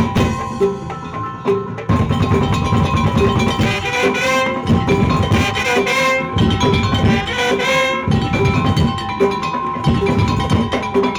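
Madurese daul (tong-tong) ensemble music: drums and percussion knocking out a fast beat under a melody and steady held tones, with the drums coming in about two seconds in.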